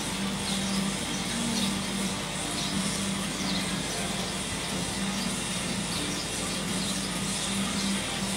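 Shrimp-pond aeration running: a steady low mechanical hum with a faint high squeak repeating about once a second, over the rushing of churned water.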